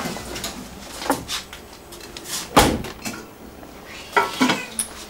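Kitchen clatter of pots, dishes and a cupboard door while cat food is being cooked, a string of knocks and clicks with one sharp bang about two and a half seconds in.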